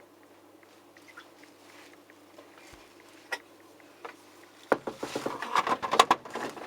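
Plastic water reservoir drawer of a condenser heat pump dryer being handled and slid back into place: a couple of faint single clicks, then about two seconds of rapid clicks and knocks near the end.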